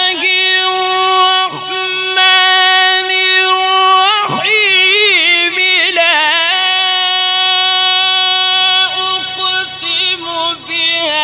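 A man's voice in melodic Quran recitation, drawing out the Basmala ('Bismillah… Allah') in long held notes that waver and turn in ornaments. Short breaks come between phrases, around four and nine seconds in.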